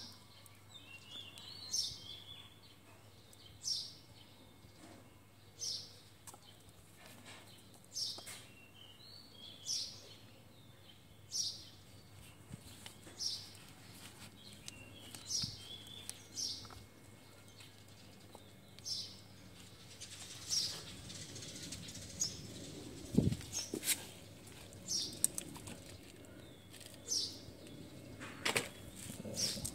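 A bird calling over and over, one short high call about every two seconds. Soft rustling and a knock past the middle come from a plastic pot and its root ball being handled.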